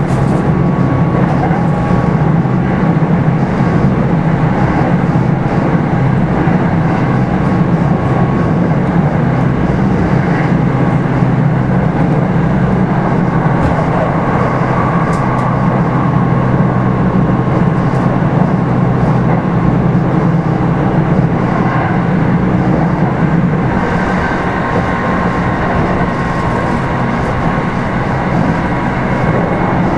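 Running noise inside a Kintetsu 5211 series electric train's motor car Mo 5261 travelling along the line: a steady rumble of wheels on rail and traction motors at speed, with a faint steady whine above it. It eases slightly in loudness near the end.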